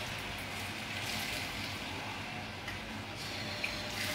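Soft, steady sizzle and simmer of carrots and spring onions cooking in butter in a frying pan, with a ladleful of vegetable broth poured into the pan near the end.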